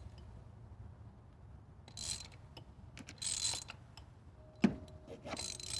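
Ratchet wrench clicking in three short runs, with a single sharp knock between the second and third, as it works on the spark plugs and coils of a car engine.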